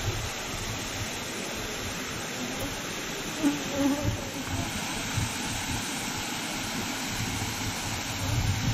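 Wind buffeting the microphone, a low rumble that swells and fades, over a steady hiss; an insect buzzes faintly a few times about halfway through.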